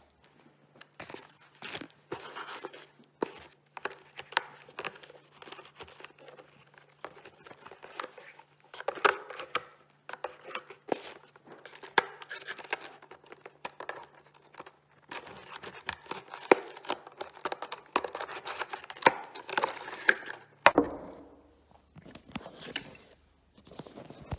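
Parcel packaging being torn and crinkled open by hand: a long run of tearing and rustling, broken by sharp crackles, that stops near the end.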